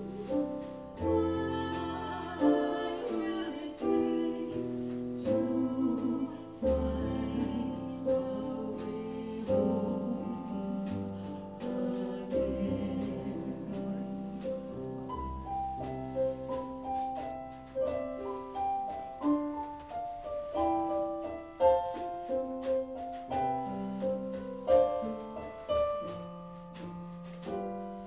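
Live song: a singer with piano accompaniment.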